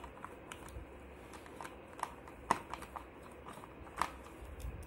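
Hand screwdriver driving a screw into a plastic baby walker frame: irregular light clicks and ticks from the tool and the plastic, with sharper clicks about two and a half and four seconds in.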